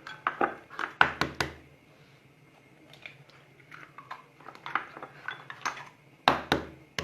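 Bowls and kitchen utensils knocking and clinking in short clusters of sharp taps, with two loud knocks near the end.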